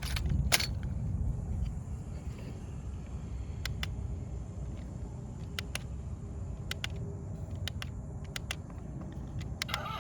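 A steady low rumble with a dozen or so sharp clicks scattered through it; the loudest click comes about half a second in.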